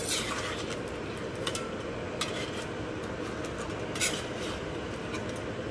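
A metal spatula stirring crabs in sauce in a steel wok, scraping and knocking against the pan a few times, the clearest knocks about two and four seconds in, over a steady hiss.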